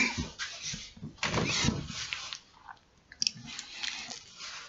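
Rustling and rubbing of clothing and hands against the camera's microphone as it is handled and moved, with a few sharp clicks a little over three seconds in.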